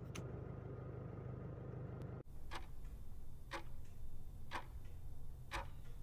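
Countdown ticking effect: four sharp clock-like ticks, one a second, over a faint low hum, starting after a low steady hum.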